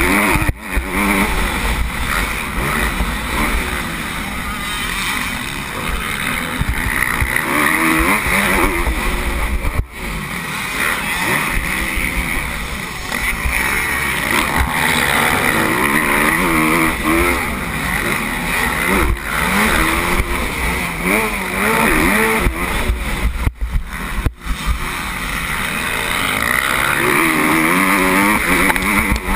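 Motocross bike engine revving up and falling back again and again as it is ridden hard around the track. A heavy low rumble of wind sits on the helmet camera's microphone. The sound dips briefly about ten seconds in and twice near the end.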